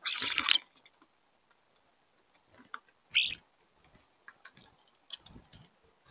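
European starlings feeding at a wire suet cage: a short harsh burst right at the start, then scattered light ticks and scrapes of pecking and claws on the feeder, with another brief harsh burst about three seconds in.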